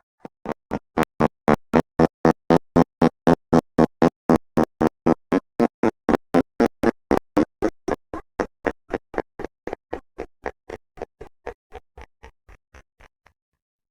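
A fart slowed to half speed, heard as a long rattle of evenly spaced pops, about four a second. The pops fade away over the last few seconds.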